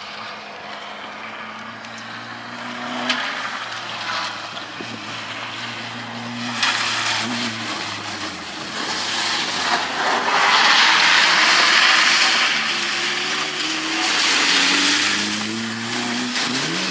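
Rally car engine revving up and falling back again and again as it is driven hard around a loose, wet track. About ten seconds in, and again a few seconds later, a loud rushing noise of the tyres on the wet gravel rises over the engine.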